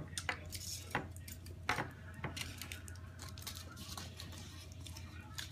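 Small hard plastic toy pieces clicking and tapping as they are handled and pressed together, a handful of sharper clicks in the first couple of seconds, over a faint steady low hum.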